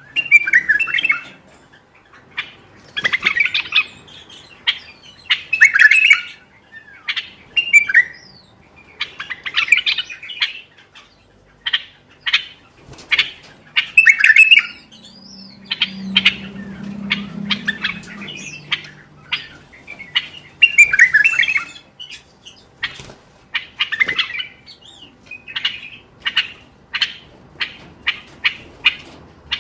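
Common bulbul singing: short loud song phrases every two to three seconds, then a quick run of short repeated notes in the last several seconds.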